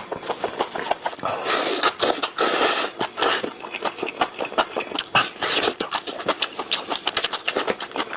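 Close-miked eating of enoki mushrooms: rapid wet chewing and mouth smacks, with a few longer slurps of about half a second each.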